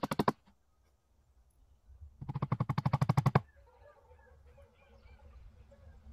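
A power tool rattling in rapid-fire clicks, in a short burst that ends right at the start and a longer one of about a second near the middle. After it, chickens cluck faintly.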